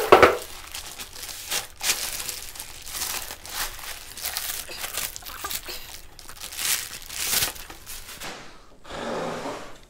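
Plastic bag crinkling and rustling as it is pulled off a rack server, a run of quick crackles with a loud rustle right at the start.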